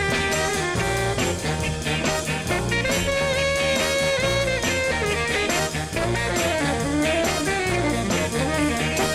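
Upbeat background music with a steady beat, bass and a horn-like melody.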